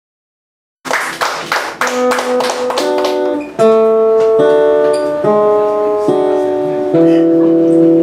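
Two acoustic guitars starting a song about a second in: a quick run of sharply plucked strokes, then longer notes left to ring as the chords change.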